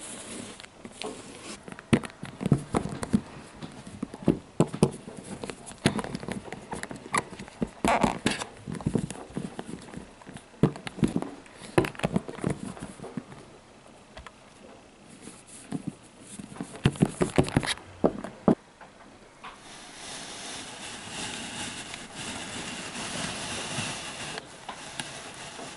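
Plastic toy pet figurines tapped and knocked on a floor as a hand makes them walk, giving irregular clicks and handling rustle. The tapping stops about three-quarters of the way through, leaving a steady hiss.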